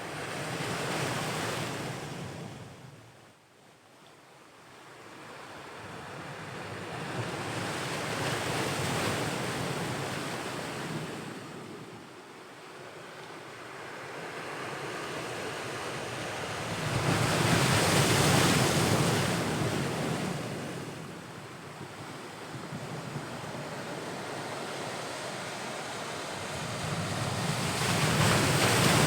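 Atlantic Ocean waves breaking and washing on the shore. The surf swells and fades in slow surges about every nine seconds, and the loudest surges come about two-thirds of the way in and at the very end.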